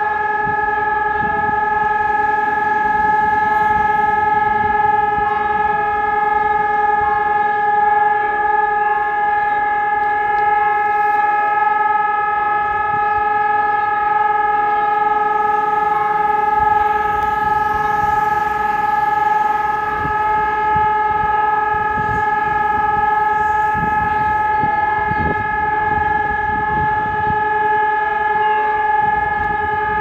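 Technologie 2000 eRotor electronic siren sounding one steady, unvarying tone from a distance, with no rise or fall in pitch. This is the 140-second continuous test tone of the Czech siren test.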